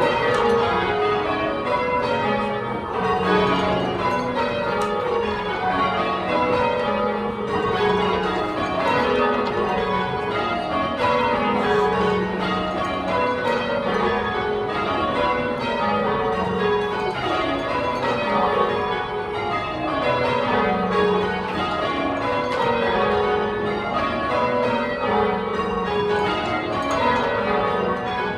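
Ring of ten church bells cast by John Taylor, rung full-circle in change ringing, each bell striking in turn down the scale in rows that repeat every two to three seconds. Heard from the ringing chamber, where the front eight bells below sound plainer than the 9th and 10th hung above them.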